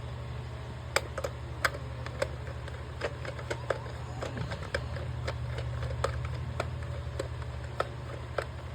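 Irregular small clicks and taps from hands working on a plastic animated Santa toy, opening its screwed-shut battery compartment, over a steady low hum.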